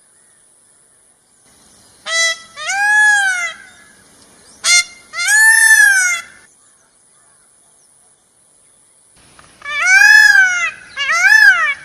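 Peacock (Indian peafowl) calling loudly three times, each a shrill, nasal pair of notes: a short note and then a longer one that rises and falls.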